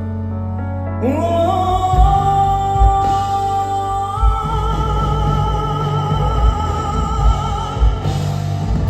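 Live pop music: a singer swoops up into one long held high note with vibrato over the band. Drums and bass come in under it about two seconds in.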